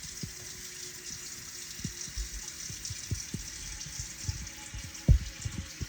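Water running from a kitchen tap into a large 10.5-quart pot as it is filled half full, a steady hiss. Scattered low knocks and one louder thump about five seconds in.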